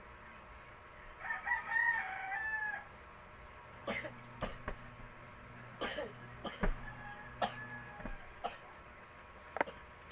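A rooster crows once, about a second in, a single drawn-out call of about one and a half seconds. It is followed by a series of sharp, irregular knocks or clicks.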